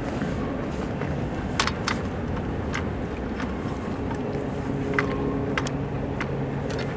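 Union Pacific freight train cars rolling past: a steady rumble with a few scattered sharp clicks from the wheels and cars.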